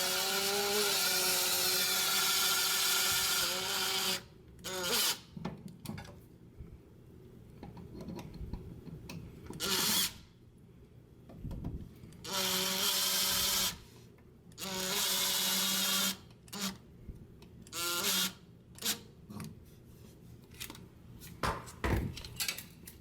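Screw gun running, first for about four seconds and then in several short bursts with quiet gaps between them, as it drives longer electrical box screws to mount switches and receptacles out to the tiled surface.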